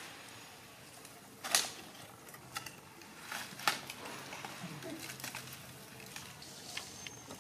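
A young macaque scrabbling down tree bark and over dry leaves: a handful of sharp crackles and clicks, the loudest about a second and a half in.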